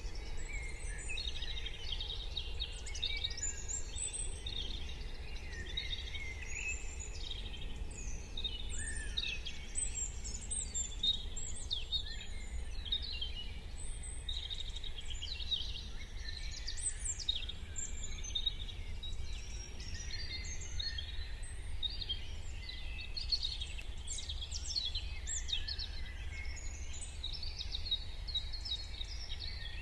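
Dawn chorus of many songbirds singing and chirping at once, calls overlapping without pause, over a steady low background rumble.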